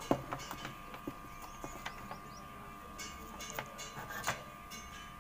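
Scattered light clicks and knocks as a TV circuit board is handled and turned over, with the loudest near the start and about four seconds in. A steady faint high whine runs underneath.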